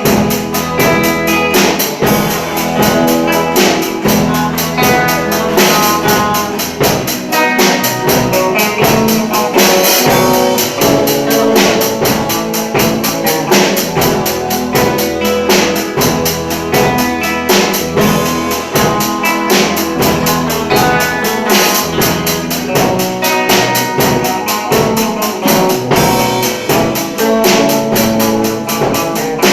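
Music with a fast, steady beat, pitched instruments over busy, bright percussion.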